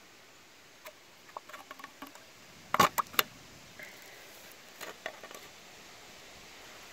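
Light clicks and sharp knocks of a metal can being handled with a metal tool: scattered small clicks, a group of three loud knocks about three seconds in, and a few lighter ones around five seconds.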